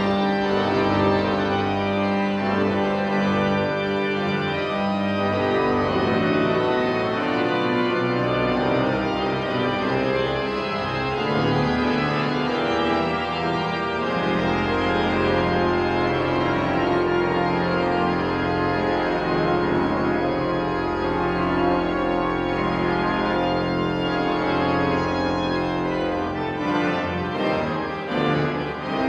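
Church organ playing held full chords. About halfway through, the harmony changes and a deep pedal bass enters underneath.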